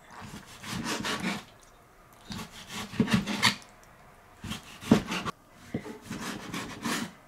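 Chinese cleaver slicing through raw chicken breast on a wooden cutting board: a series of irregular drawn cuts, each ending in a knock of the blade on the board, the sharpest about five seconds in.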